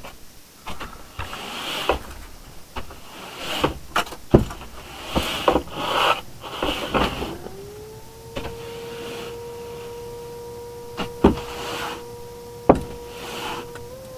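Knocks, clunks and rustling inside an electric-converted Toyota Previa. About seven seconds in, a small electric motor in the car spins up with a rising whine and settles into a steady hum. A few sharp clicks sound over it.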